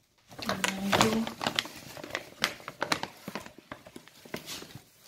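Plastic bag of silica gel cat litter crinkling and crackling in the hands as it is being opened, with a short hum of a voice about half a second in.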